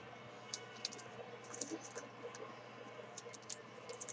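Faint, scattered light clicks and taps of football trading cards in hard plastic holders being handled.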